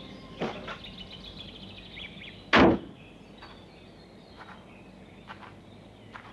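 Car boot lid slammed shut with a single heavy thump about two and a half seconds in, after a lighter knock about half a second in; faint scattered ticks follow.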